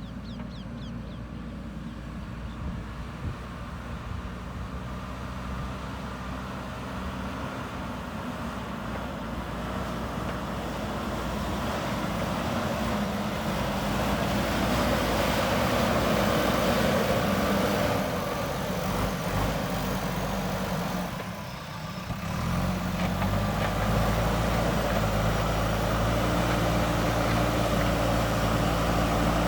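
JCB 3DX Super backhoe loader's diesel engine running, growing louder over the first half, dipping briefly about three-quarters of the way through, then running steadily.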